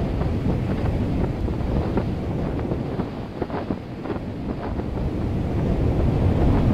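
Wind buffeting the microphone: a steady low rumble with faint scattered crackles.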